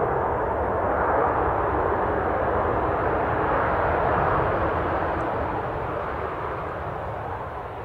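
Boeing 737-800's CFM56-7B engines in reverse thrust on the landing roll, a loud, steady jet roar that starts to fade about halfway through as the airliner slows.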